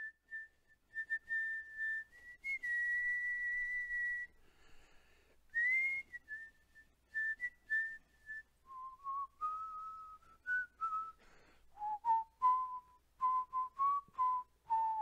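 A person whistling a slow tune in a single clear melody line. It holds high notes with a few upward slides, then moves lower for the second half.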